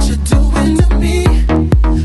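Electronic dance music with a steady kick drum about twice a second over a bass line.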